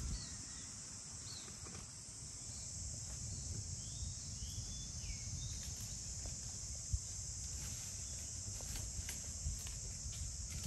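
Steady high-pitched drone of an insect chorus, with a few short bird chirps in the first half. Near the end come scattered light crackles, like feet on dry fallen leaves.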